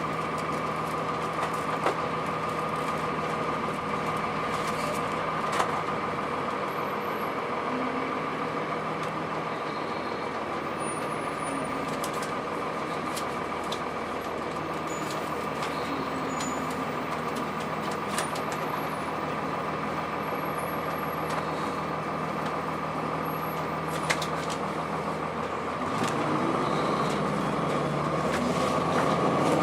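Inside a Blue Bird CS bus: its Cummins ISC diesel engine running steadily with a high steady whine and a few short rattles, then revving up and getting louder near the end.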